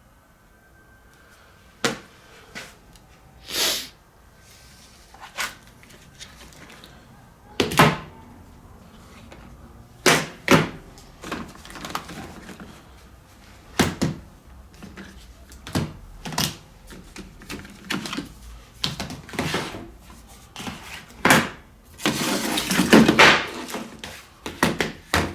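Scattered knocks and clunks of scrap laptop parts being handled and set down, about a dozen separate hits, with a longer stretch of clattering handling about three seconds before the end.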